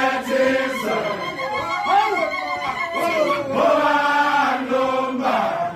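A group of men singing a Zulu chant in unison, holding long notes in phrases.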